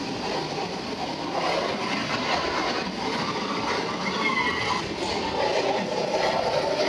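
Go-karts running round an indoor track, the engines' drone filling the hall as karts pass and accelerate out of the corner, with a short high squeal about four seconds in.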